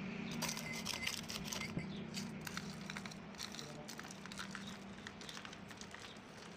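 Spoon stirring a steel bowl of iced watermelon-and-milk sharbat: irregular small clicks of ice and spoon knocking against the bowl, over a steady low hum.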